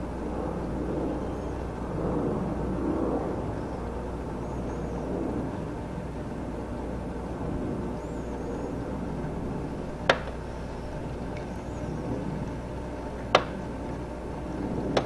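Steady hum and water noise from an aquarium circulation pump driving a current through the tank, with two sharp clicks about three seconds apart in the second half.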